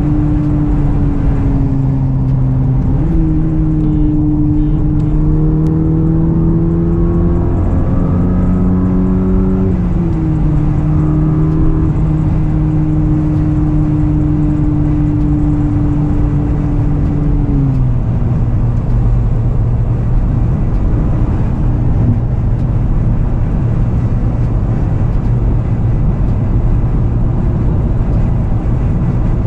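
10th-gen Honda Civic running on E85, heard from inside the cabin: the engine pulls hard, its pitch jumping up about three seconds in and climbing until it drops at a gear change near ten seconds. It then holds steady until, about eighteen seconds in, it falls back to a lower, steady cruising drone under road noise.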